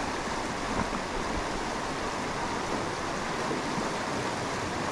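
Shallow mountain river rushing steadily over a rocky riffle.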